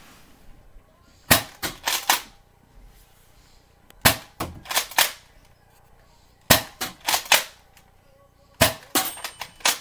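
Nerf Rival Kronos spring-powered pistol being fired four times, about two and a half seconds apart. Each shot is a short burst of several sharp clacks.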